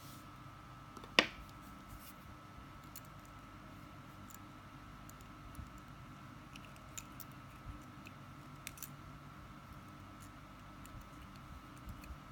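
Small metallic clicks of needle-nose pliers and steel wire being handled and bent into a link, with one sharp click about a second in and faint scattered ticks after.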